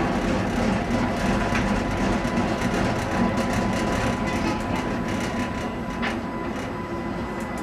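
Streetcar running along its rails, heard from on board: a steady rumble of wheels on the track with a thin, steady whine above it.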